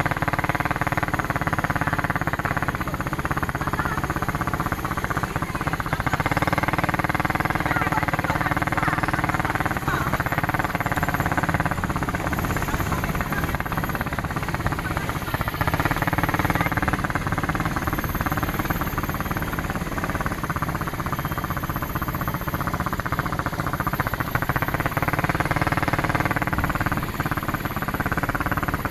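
ATV engine running continuously, its pitch rising and falling in waves as the throttle is opened and eased off.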